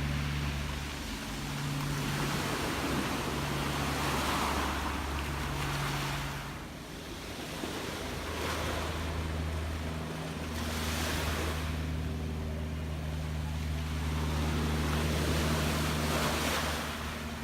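Gentle sea waves washing in, the hiss of each wave swelling and falling away every few seconds, over a low steady hum.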